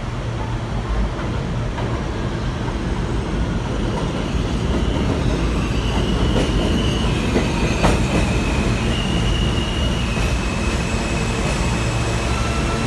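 New York City subway train of R160 cars pulling into a station and slowing, its rumble growing louder as it comes in. Wheels knock over rail joints twice, and high-pitched tones fall in steps as it slows.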